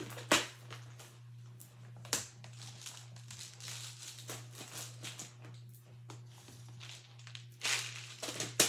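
Bracelet-making supplies being handled and packed away: scattered clicks and knocks of small plastic containers and tools, with light rustling of packets between them. The sharpest knocks come just after the start, about two seconds in, and near the end.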